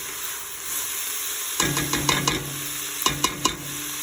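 Onion, garlic, asparagus and spinach sautéing in a pot with a steady sizzle, while a utensil stirs and knocks against the pot in two short bouts, about one and a half seconds in and again about three seconds in.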